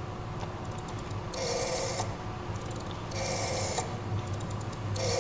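Telephone signal sound effect played over the theatre speakers: three short bursts of the same signal, each about half a second long, repeating evenly less than two seconds apart.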